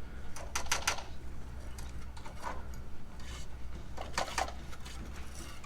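Trowel scraping tile adhesive onto the back of a stone cladding piece: two short runs of quick scraping strokes, about half a second in and again around four seconds, over a steady low hum.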